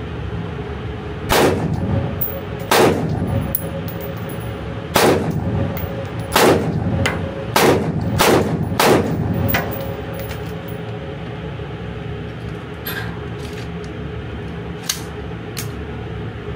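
Alpen Arms STG15 AR-15 semi-automatic rifle in .223 Rem firing seven loud shots in an indoor range, each echoing briefly. The first shots come a second or two apart and the last ones come quicker. A few fainter cracks follow near the end, over a steady background hum.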